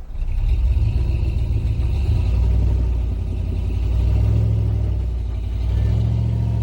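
Off-road vehicle engine running at low speed under load as it crawls up a rocky trail, with a deep steady rumble that swells twice as the throttle is raised.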